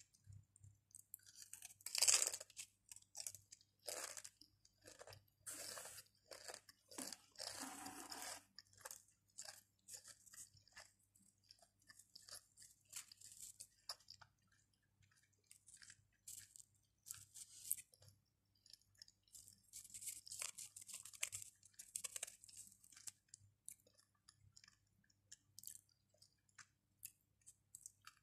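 Pringles crisps being bitten and chewed close to the microphone: a series of sharp crunches, the loudest about two seconds in, with quieter chewing between.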